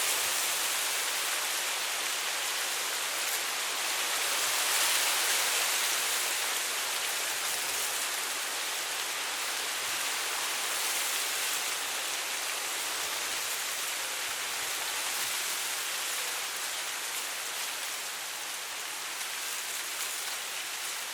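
Wind blowing through tall dry grass: a steady high rustling hiss that swells a little a few seconds in and eases off toward the end.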